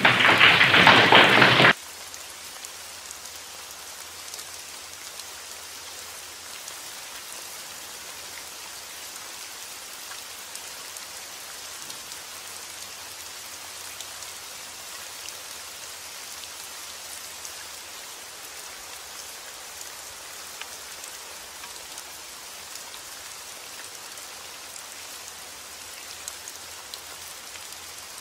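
Steady rain falling, an even hiss with scattered drop ticks. In the first two seconds a louder crackling noise lies over it and cuts off abruptly.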